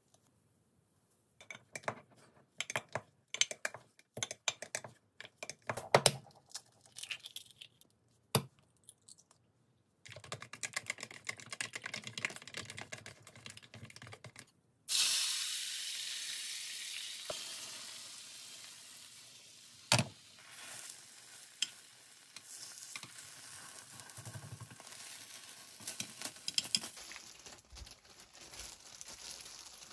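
Spoon clinking and scraping as rice is mixed with seasoning in a glass measuring jug, then chopsticks beating eggs fast against a plastic bowl. About halfway through, a loud hiss starts suddenly and slowly fades: beaten egg sizzling in a hot frying pan. Near the end, plastic gloves crinkle as rice is pressed onto laver.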